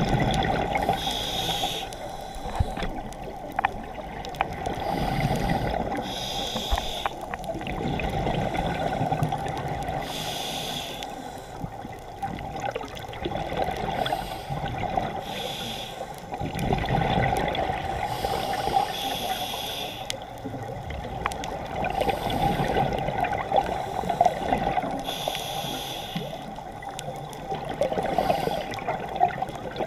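Scuba diver breathing through a regulator underwater. Each breath in brings a short hiss, and each breath out brings a longer gurgling rush of bubbles, about seven breaths in all at an even pace.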